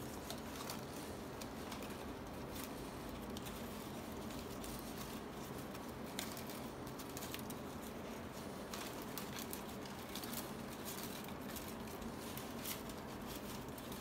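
Palm leaf strips rustling and crackling as they are woven and pulled through by hand: many small irregular ticks over a steady low hiss.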